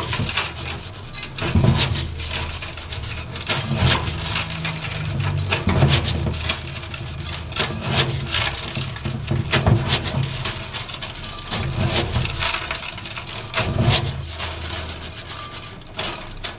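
Wet, raw Japanese rice being stirred and rubbed by hand against the sides of a stainless steel bowl: a continuous gritty rattle of grains on metal, swelling with each stroke of the hand. This is the rice being polished to rub off surface starch before rinsing.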